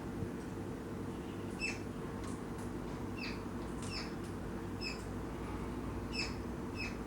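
Juvenile rosella giving short, high, falling begging chirps about once a second while being fed by its parent, over a steady low hum.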